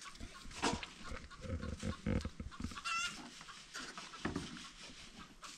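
Chickens clucking, with short high calls about once a second, among other farmyard animal noises.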